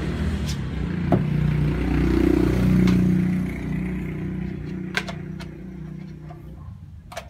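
A motor vehicle's engine passing by, its low rumble swelling about two seconds in and fading away. A few light clicks of plastic flower pots being handled.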